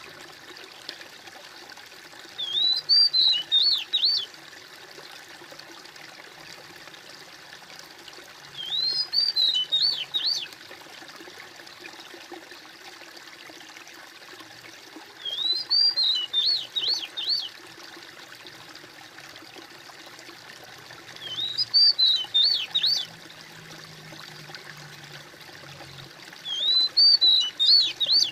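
Steady trickling water, with a songbird singing the same short phrase of quick high chirps about every six seconds, five times; the bird phrases are the loudest sound.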